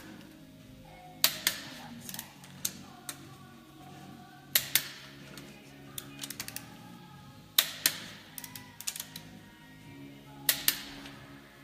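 Hazet click-type torque wrench breaking over as each cylinder-head stud nut reaches its set torque: a sharp double click about every three seconds, with lighter ratchet clicks between as the wrench is worked on to the next nut.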